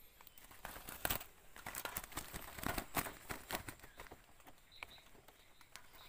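Rustling and crackling of a mesh net and dry leaf litter as a gloved hand handles a net bird trap: a dense run of sharp crackles over the first few seconds, loudest about a second in, then quieter.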